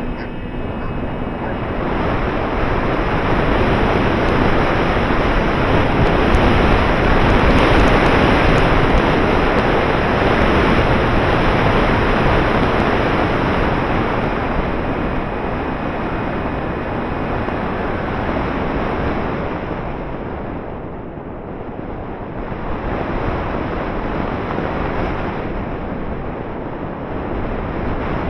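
Airflow rushing over the on-board camera of an RC glider in flight, a dense steady rush of wind noise. It swells over the first couple of seconds as the model gets airborne, is loudest about a quarter of the way in, eases briefly about three-quarters through, then builds again.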